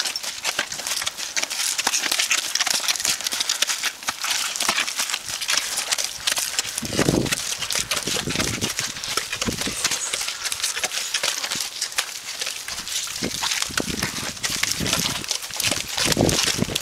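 A horse wearing B4 hoof boots walking through deep wet mud, its hooves plodding and squelching step after step, with a few heavier thuds as feet land.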